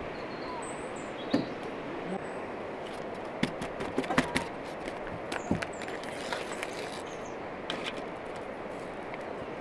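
Plastic spice sachet crinkling and tearing in someone's hands: a cluster of sharp crackles and clicks in the middle, a few more later, over a steady outdoor hiss. A bird chirps briefly near the start.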